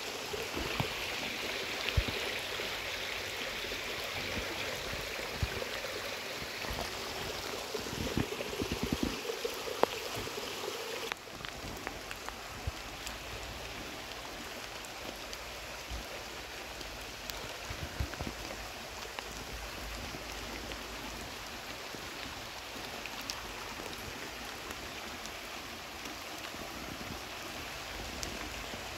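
A small rain-swollen stream rushing fast over stones. About eleven seconds in, the sound drops abruptly to a quieter, even hiss of fine rain with scattered small drip ticks.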